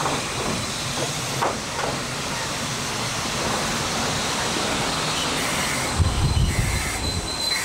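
Electric train running into a station and slowing to a stop alongside the platform, a steady hiss of wheels and motors. A thin high squeal comes in as it slows, with a burst of low rumble about six seconds in.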